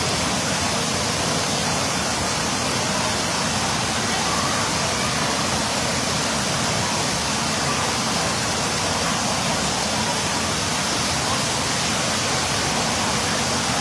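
Warm water pouring in curtains from overhead cascade shower bars into a pool, a steady rushing splash with no let-up.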